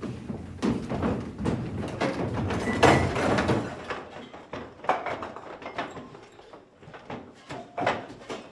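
Knocks, thumps and scraping of stage props being handled as a group rummages for something, with footsteps on the wooden stage. The clatter is densest and loudest in the first few seconds, peaking about three seconds in, then thins to scattered knocks.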